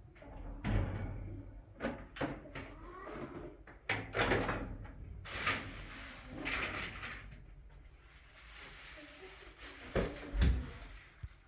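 Irregular knocks and thuds with rustling between them, like objects being handled and set down; two heavier thuds come near the end.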